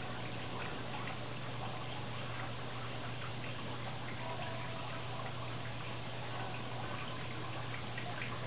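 Koi pond water trickling steadily over a low, even hum, with a few faint tones from metal tube wind chimes.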